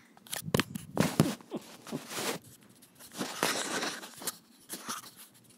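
Scuffling and rustling of a cat wrestling with a hand on bedding, close to the microphone: irregular scrapes with several sharp knocks, loudest in the first second and a half and again around the middle.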